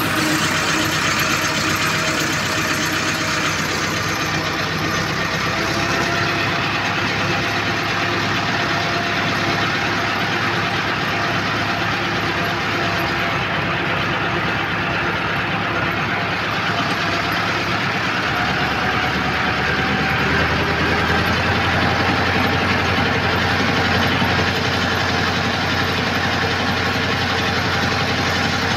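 Farm tractor's diesel engine running steadily as the tractor drives along, heard from the driver's seat. Its low note shifts slightly about two-thirds of the way through.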